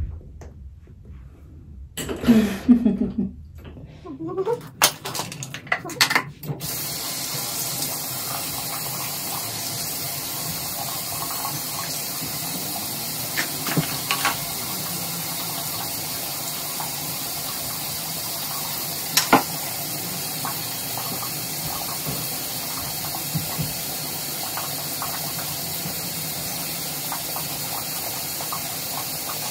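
A water tap running steadily into a sink, turned on about seven seconds in after a few short knocks and handling sounds, with a few clicks in the water stream. It is the rinsing of a mouth and a teeth-whitening tray.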